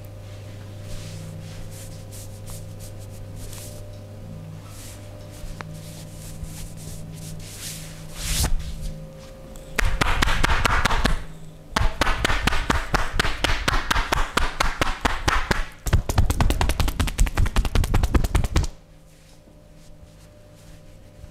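Rapid percussive massage strikes, hands chopping or slapping on the body, many a second. They come in three loud runs starting about eight seconds in, after a quieter stretch with a steady low hum.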